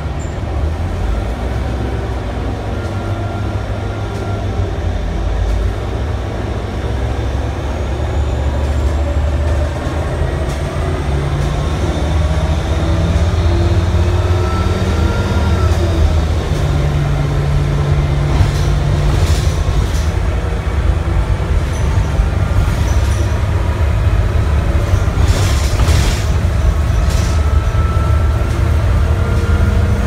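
Cabin sound of a 2006 Blue Bird Ultra LF CNG transit bus under way: its rear-mounted Cummins Westport B Gas Plus natural-gas engine and Allison transmission run with a deep, steady rumble that grows louder as the bus picks up speed. In the second half, cabin rattles and knocks come over the drone.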